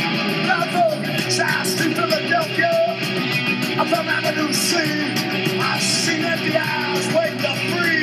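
Loud punk rock music: distorted electric guitars and drums with cymbals, and a shouted vocal line.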